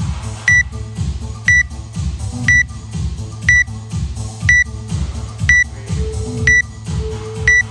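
Workout interval timer beeping a countdown to the start of a round: eight short, high beeps, one each second. Background music with a steady beat plays underneath.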